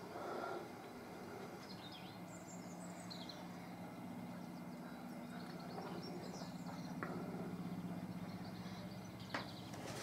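Great spotted woodpecker chiselling out a nest hole, its bill striking the wood in a few single sharp knocks, one about seven seconds in and a louder one near the end. Small birds chirp in the background over a steady low hum.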